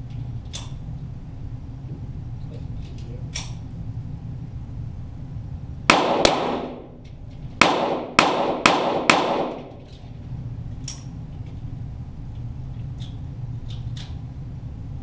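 .22 Walther GSP target pistol shots heard from near the target: six loud cracks in quick succession starting about six seconds in, over roughly three seconds, each with an echoing tail. Fainter single cracks come before and after.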